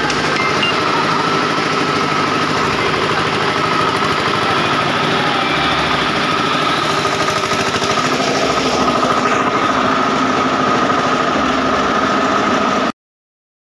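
Tractor engine running loud and steady, heard from the driver's seat, cutting off suddenly near the end.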